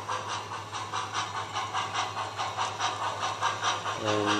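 O-scale model steam locomotive's sound system chuffing steadily, about four hissing chuffs a second, over a constant low hum from the running train. A brief low tone sounds near the end.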